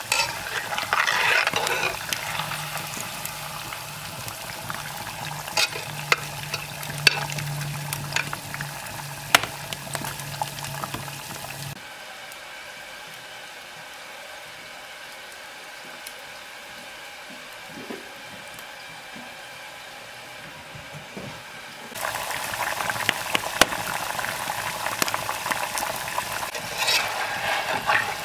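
Potatoes deep-frying in a cast-iron pot over an open fire: a steady sizzling and bubbling with a spoon stirring and scattered sharp clicks. For about ten seconds in the middle the frying drops away to a quieter room with a few soft knocks, then comes back loudly as more potato pieces go into the hot fat.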